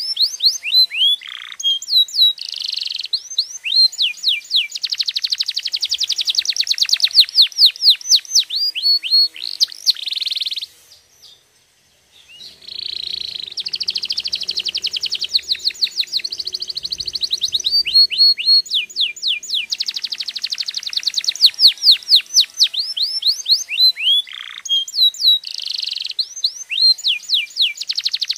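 Domestic canary singing a long, loud song of rapid down-sweeping notes and fast rolling trills. It breaks off for about a second and a half roughly halfway through, then carries on.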